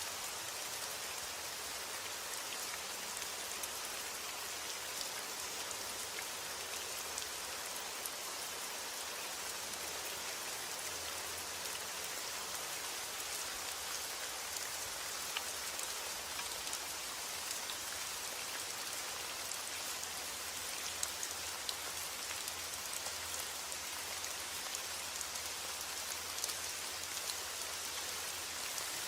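Steady rain falling on a surface, a dense even hiss with many small drop ticks and a few louder individual drop hits scattered through.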